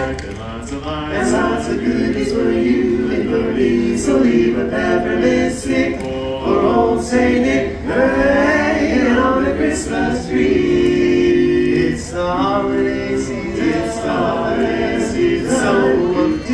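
Male barbershop quartet singing a cappella in close four-part harmony, with held chords and no instruments.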